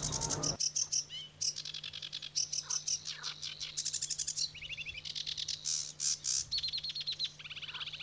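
Sedge warbler singing: a fast, jumbled run of chattering notes, buzzes and trills that tumble out one after another.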